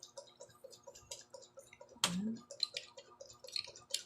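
Eating sounds: chewing and wet mouth clicks and smacks from someone eating dried fish with rice, with a short hummed "mm" about two seconds in. Under them runs a soft, steady ticking about six times a second.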